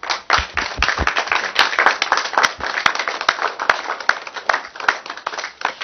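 Applause: a group of people clapping, with a few dull thumps in the first second, dying away near the end.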